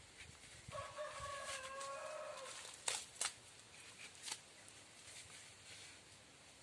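A rooster crowing once, a call of about two seconds, followed by a few sharp clicks.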